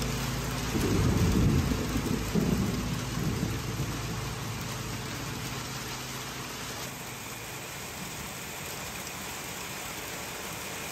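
Steady rain falling, with a low roll of thunder that swells about a second in and dies away over the next couple of seconds. The tail of a held music chord fades out at the very start.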